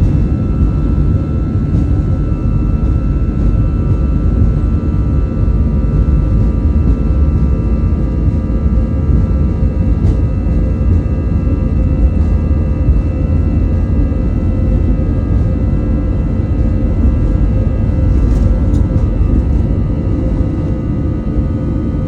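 Airbus A320 jet engines running at takeoff power: a loud, steady deep rumble with several high, steady whining tones over it, one of which wavers slightly.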